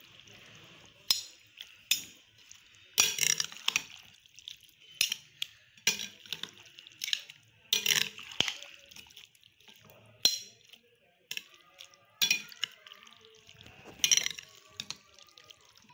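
Metal spoons stirring yogurt-coated chickpea chaat in a glass bowl: irregular sharp clinks of spoon on glass, with wet squelching of the mix between them.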